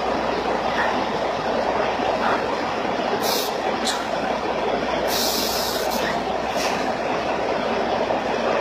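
Steady mechanical noise, with four short hisses between about three and seven seconds in, the longest lasting about a second.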